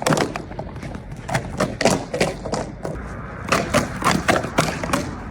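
A quick, irregular run of taps and knocks, several a second, like small hard impacts on a hard surface.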